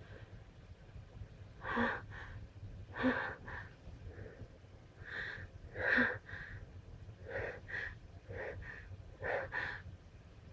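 A person's short, sharp breathy bursts in quick succession, about seven of them, several followed closely by a smaller one. The loudest come about two, three and six seconds in.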